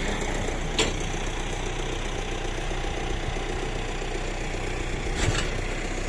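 Massey Ferguson 390 tractor's four-cylinder diesel engine idling steadily, with a short knock about a second in and another about five seconds in.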